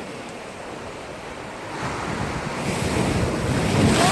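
Sea swell washing against the shore, building in level over the last two seconds, with wind buffeting the microphone.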